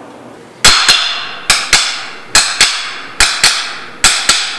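Utensils knocked on plates in a steady beat: five pairs of sharp knocks with a short ringing tail, one pair a little under every second.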